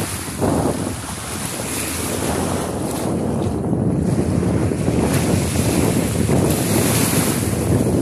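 Small Black Sea waves washing onto a sandy shore, with wind buffeting the microphone.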